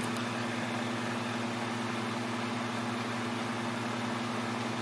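Steady low machine hum under a constant fan-like hiss, unchanging throughout.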